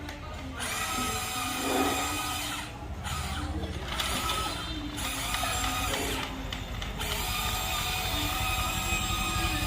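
Electric gear motors of a Huina 1594 RC excavator whirring in bursts, starting and stopping several times as the arm and body are worked.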